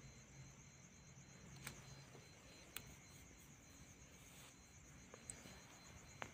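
Near silence, with faint crickets chirping steadily in a fast, even pulse and a few faint clicks.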